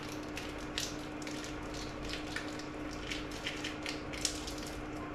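Scattered light clicks and scrapes of a spoon and a soft packet being worked against a small metal bowl as crème fraîche is put in for a dressing, over a steady low hum.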